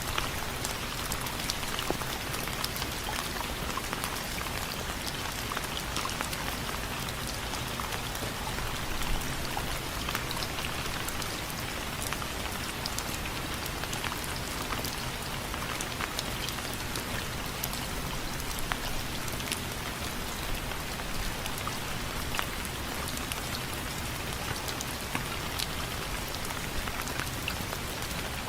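Steady rain falling on window frames, with many separate drops ticking sharply on the frame over a continuous hiss of rainfall.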